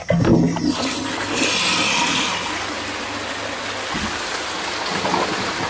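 Cast-iron STOM Cardiff bell cistern flushing: a knock as it sets off, then water rushing down the flushpipe and swirling through the toilet pan. The siphon starts and the flush works, a pass on this test.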